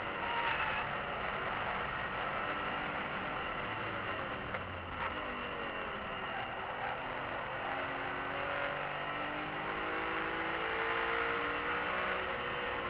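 BMW E46 M3's straight-six engine under way, heard from inside the cabin over steady road and wind noise. Its pitch climbs over the second half as the car accelerates.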